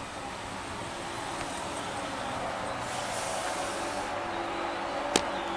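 Class 313 electric multiple unit running into the platform, its running noise slowly growing louder as it approaches. A short hiss of air comes about three seconds in, and a single sharp click near the end.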